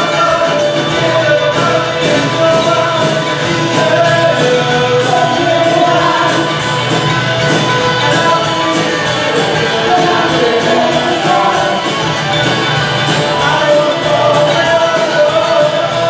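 Live rock band playing: a woman singing lead over guitars and a drum kit keeping a steady beat.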